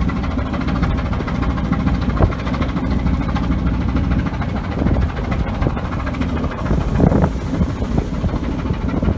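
A fishing vessel's engine running with a steady low rumble and a fast, even pulse, heard from the open upper deck.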